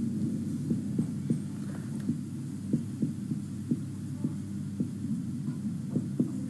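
A steady low electrical hum, with soft, irregular knocks about once or twice a second as a marker is written on a whiteboard.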